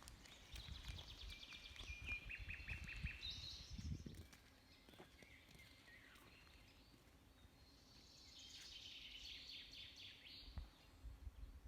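A songbird singing faintly: two short song phrases of rapid trills that step down in pitch, one at the start and one near the end, over a faint low rumble.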